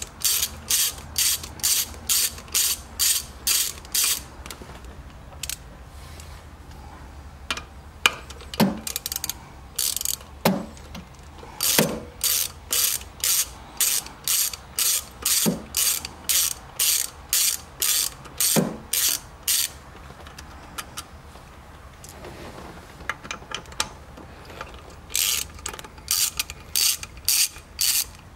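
Hand ratchet wrench clicking as it backs out the shifter's 3/8-inch mounting bolts: quick strokes about three a second, in several runs with pauses between, and a few sharper knocks in the gaps.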